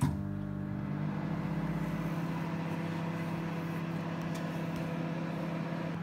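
Countertop microwave oven with dial controls switching on and running with a steady low hum, with a deeper rumble under it for the first two seconds.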